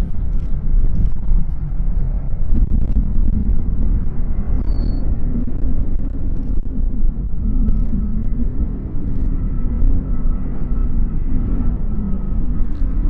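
Low, gusting rumble of wind buffeting the microphone. A faint steady engine tone joins it about halfway through.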